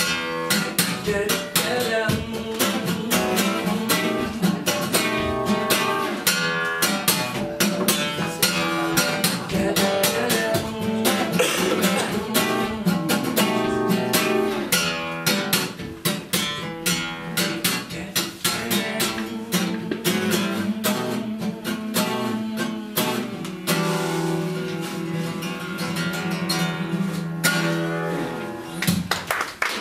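Acoustic guitar strummed briskly, a run of chords without singing, stopping just before the end.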